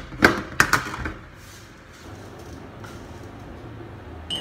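Two sharp clicks in the first second from the lid of a large metal instant-coffee tin being handled, then low room hum, and a light metallic clink near the end.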